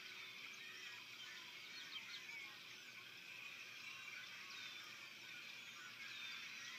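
Faint, steady spring chorus of many overlapping high chirps and short whistling calls from small animals.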